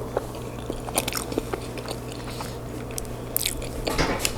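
Close-miked chewing of homemade lasagna: irregular wet mouth smacks and clicks, a few louder ones near the end.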